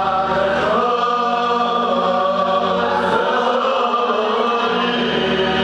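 Hasidic men singing a niggun together in one voice, a chant-like melody in long held notes.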